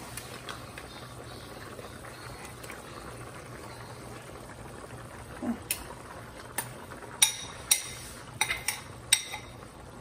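Broth simmering steadily in a stainless steel pot. From about halfway, a run of about seven sharp metallic clinks as the pot's lid is handled against the pot.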